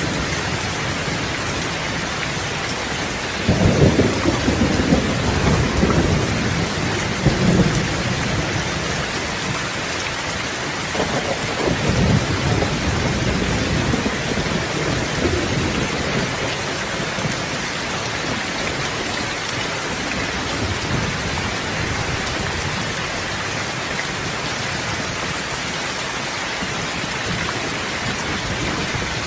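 Steady rain with thunder rumbling twice: a sudden low rumble about three and a half seconds in that rolls on for several seconds, and a second one starting around eleven seconds in and fading out.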